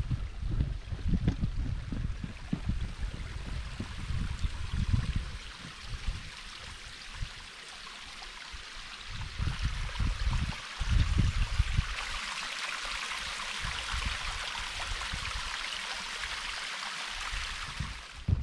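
Small spring-fed stream running, its rushing growing louder toward the end. Wind rumbles on the microphone in the first few seconds and again around ten seconds in.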